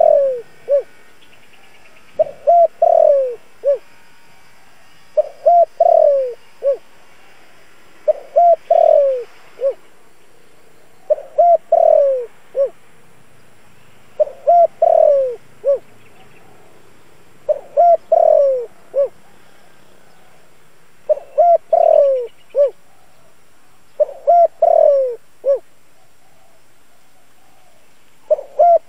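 Spotted dove cooing: a short phrase of four or five notes, the middle ones loudest and sliding down in pitch, repeated about every three seconds.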